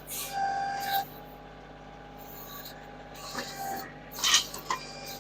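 Kioti tractor backhoe digging a post hole: the bucket scrapes and grates through rocky soil over the steady running of the diesel engine, with a brief squeal in the first second and another burst of scraping about four seconds in.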